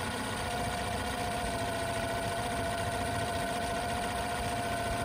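2006 Honda 8 hp four-stroke outboard idling steadily in a test tank. It is running to flush out salt debris left in its cooling system after being stored without a freshwater flush.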